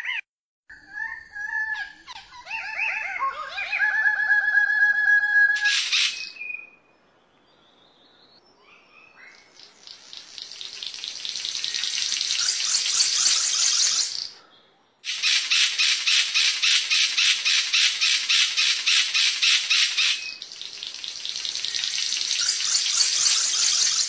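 Bird calls: a few whistled notes that slide in pitch and a run of quick repeated notes. After a quiet dip, a long, loud, rapidly pulsing buzz swells up and holds, breaking off briefly twice.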